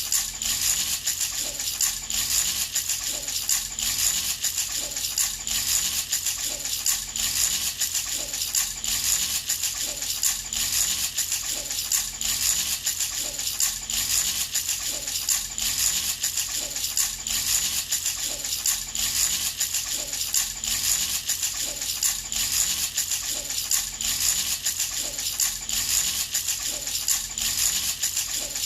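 A handheld baby rattle shaken continuously in an even, steady rhythm, its small hard pieces clattering with a bright, clicky rattle.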